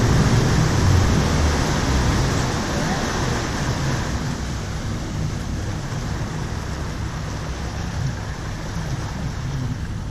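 A small boat moving through the sea: rushing water along the hull, wind noise and a low engine rumble, all easing off gradually as the boat slows.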